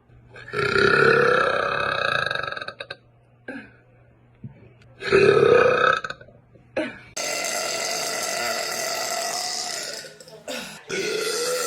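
A woman's loud, deep burps: one lasting about two seconds, a shorter one about a second long, then a long drawn-out burp of several seconds against a steady hiss.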